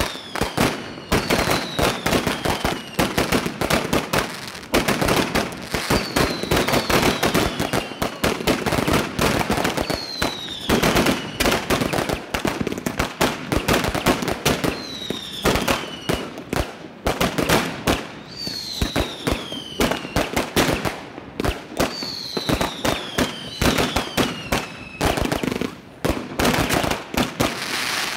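Mascletà-style firecracker display: dense, rapid strings of firecracker bangs crackling almost without a break. A falling whistle cuts through every few seconds, and the bangs thicken near the end.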